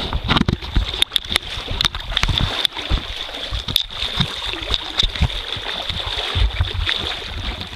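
Water splashing and sloshing in shallow water in irregular bursts, with wind rumbling on the microphone.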